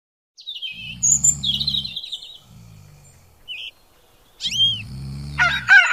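Birds chirping and tweeting in quick high calls after a brief silence, with short low hums underneath. Near the end a rooster starts to crow.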